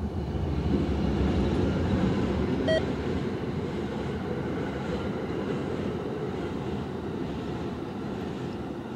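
Amtrak passenger train passing at speed: a steady rumble and clatter of wheels on rail as the coaches roll by. It swells over the first second, is loudest a second or two in, then slowly eases as the cars keep passing.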